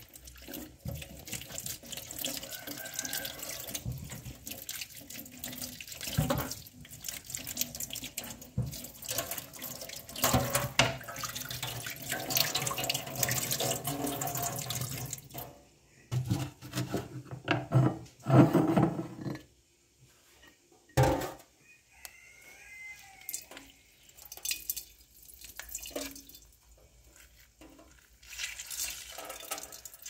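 Tap water running into a stainless steel sink while oranges are rubbed clean under the stream. About halfway through the water stops, giving way to scattered knocks of a knife cutting oranges on a wooden board.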